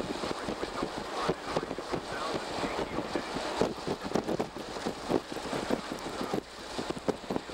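Road and wind noise from inside a moving car, with many irregular light taps and knocks throughout.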